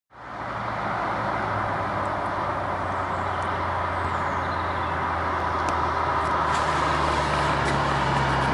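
Mitsubishi Lancer Evolution VIII's turbocharged four-cylinder engine approaching at steady revs: a steady low drone, with a higher note joining about two-thirds of the way in.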